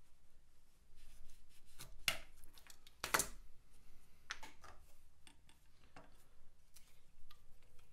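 A few short clicks and taps of small hand work, the loudest about three seconds in: a craft knife prising a silicone-coated worm master off its balsa block and the pieces being set down on a tile.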